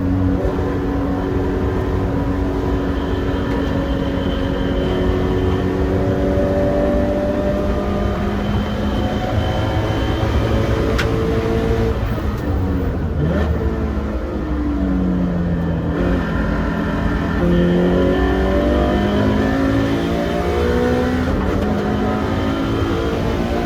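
Toyota 86's flat-four engine pulling hard on track, its pitch climbing and dropping with gear changes. About midway the revs fall and hold lower for a few seconds, then climb again.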